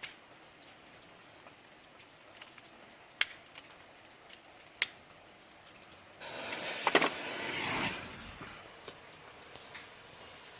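Firecracker going off: two sharp single clicks, then about six seconds in a loud fizzing hiss that lasts about a second and a half, with a few sharp cracks near its start.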